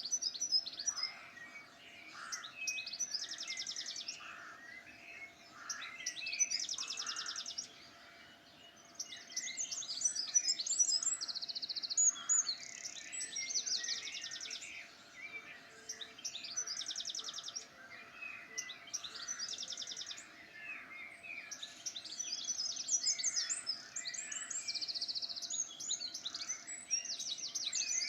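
Songbirds singing, a mix of chirps and whistles with a rapid trilled phrase repeated every few seconds.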